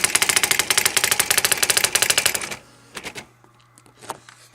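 Brother EM-411 electronic typewriter printing, its print mechanism striking characters in a fast, even run of clicks, about a dozen a second, that stops about two and a half seconds in, followed by a few single clicks.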